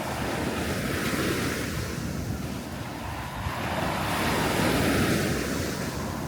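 Sea waves breaking and washing up a beach, a steady surf hiss that swells twice, about a second in and again around four to five seconds in.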